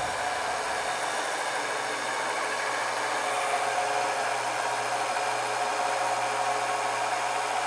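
Homemade milling machine's motor and gearhead running, a steady whir with a faint steady tone over it.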